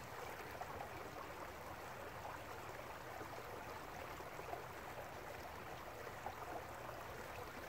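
Small woodland stream flowing, a faint steady rush of water.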